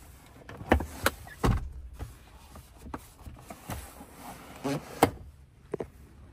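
A series of sharp clicks and knocks as the rear seat's centre armrest/seat-back section is folded down and its latch and panels bump into place. The loudest knocks come about a second in, with more near the middle and end.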